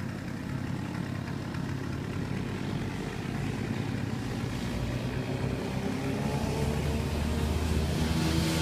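Homemade snowmobile powered by a two-stroke chainsaw engine, running steadily and growing gradually louder.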